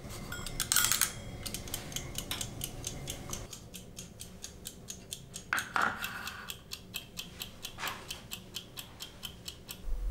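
Mechanical kitchen timer ticking steadily, about three to four ticks a second, counting down a 10-minute simmer. A louder clatter comes about a second in, and a louder scrape a little past halfway as the timer is turned and set.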